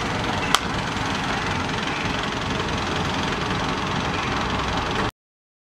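Steady street noise of vehicle engines running, with a single sharp click about half a second in; the sound cuts off abruptly near the end.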